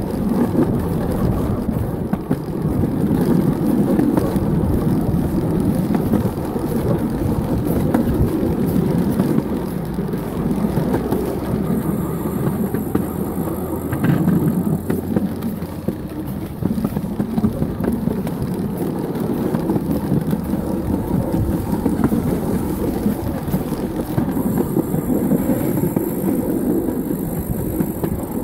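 Wheels of a pedal-powered 7¼-inch gauge rail velocipede rolling along miniature railway track: a steady rumble with frequent light clicks.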